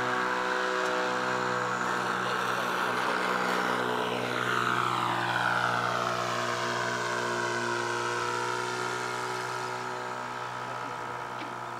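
Small model-airplane engine and propeller running as the vintage RC plane flies past. The pitch drops as it passes about five seconds in, and then the sound slowly fades.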